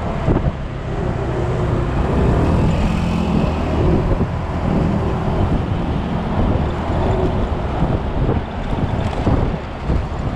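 Wind buffeting a helmet- or bike-mounted action camera's microphone while riding an automatic scooter, with a low engine hum underneath.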